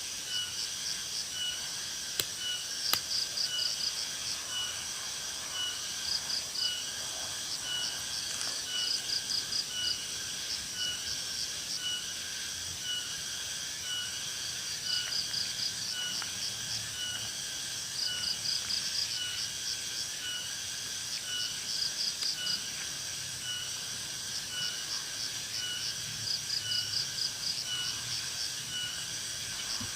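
Steady chorus of insects, shrill and continuous, with rapid trilled pulses coming and going every few seconds over evenly repeated shorter notes. Two sharp clicks sound about two and three seconds in.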